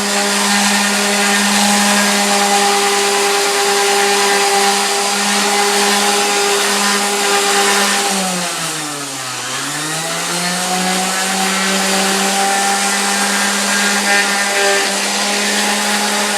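Electric power sander running steadily at speed against a frame. About halfway its pitch sags for a couple of seconds as it bogs under pressure, then recovers, and it begins to wind down right at the end.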